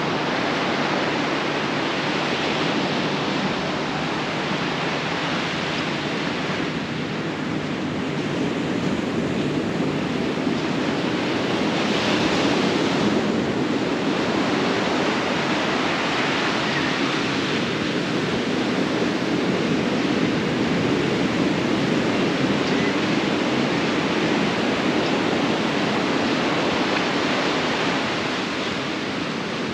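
Sea surf washing onto a sandy beach, a continuous rush of breaking waves that swells louder about twelve seconds in.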